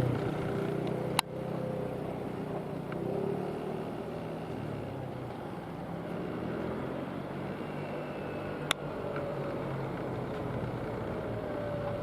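Vehicles passing with a steady rumble, broken by two sharp clicks, about a second in and again near nine seconds in.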